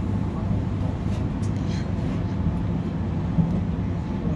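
Interior running noise of a Z 50000 (Francilien) electric multiple unit: a steady low rumble, with a few faint clicks between one and two seconds in.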